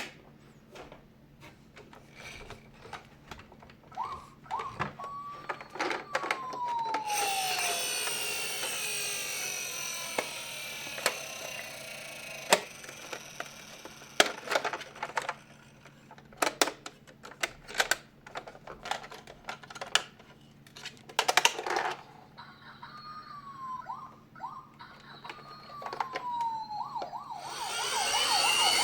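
Toy ambulance minicar's electronic siren sounding in short snatches of falling wail, about four seconds in and again near the end, where it grows louder. Many sharp plastic clicks and knocks sound throughout, with a steady whirring stretch in the middle.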